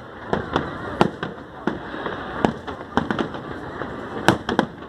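Fireworks display going off: an irregular run of sharp bangs, the strongest about a second in and again near the end, over a steady background din.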